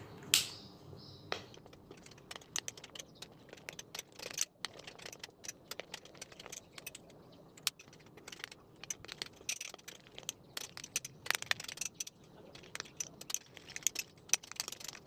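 Tissue-paper slime being stirred in a bowl as the contact lens solution activator takes effect: a string of irregular small clicks and taps, with a sharper click about half a second in.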